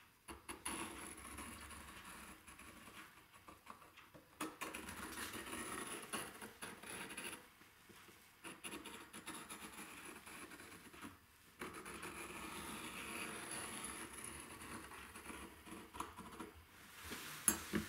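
Steel dividers scratching as they scribe an arc into the textured face of a film-faced plywood board, in long strokes that stop briefly a few times.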